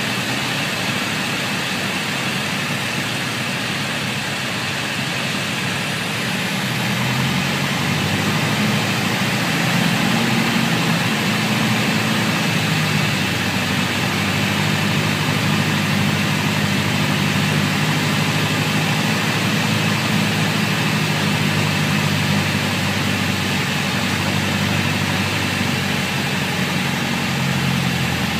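Piper Warrior's four-cylinder piston engine and propeller droning steadily, heard inside the cabin on final approach. The engine note grows a little louder about seven or eight seconds in.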